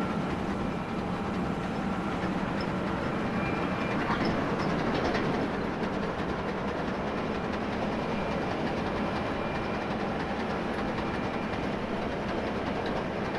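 John Deere T670i combine harvester running steadily: a constant machine noise with a faint high whine.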